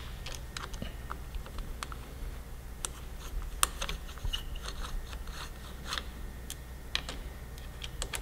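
Small irregular clicks and taps of hands handling a motorcycle's handlebar throttle housing and its rubber cable boot, over a faint steady hum.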